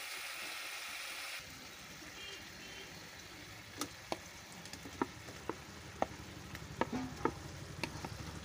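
Tomato-onion gravy sizzling in a kadai, stopping suddenly at a cut. Then fried chicken pieces are tipped off a plate into the gravy, with a run of sharp clicks and taps as they are pushed off and land in the pan.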